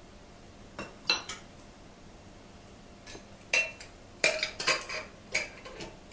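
A metal ladle clinking against a pot, with glass jars and lids clinking while jars are filled with jam and capped: a few sharp clinks about a second in, then a denser run of clinks in the second half.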